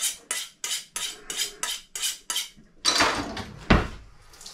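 Kitchen knife being sharpened, a quick run of short metal-on-metal strokes at about four a second, followed by a longer scrape and a single knock.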